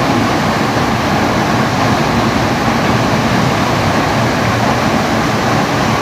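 Waterfall's water rushing and pouring in a loud, steady, unbroken wash of noise; the stream is running high and rising.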